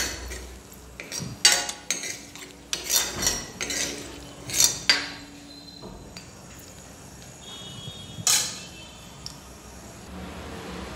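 Metal utensil knocking and scraping against a kadai as dried red chillies are stirred in hot mustard oil, over a low sizzle of frying. There is a run of clatters in the first five seconds and one more about eight seconds in.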